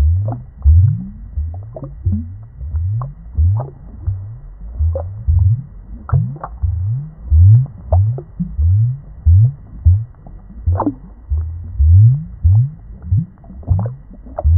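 Deep underwater bubbling: low gurgling bloops about twice a second, each rising in pitch, with faint thin chirps now and then above them.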